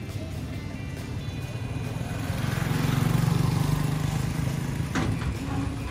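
A small motorcycle engine passing close by, growing louder to a peak about three seconds in and then fading. A short knock comes near the end.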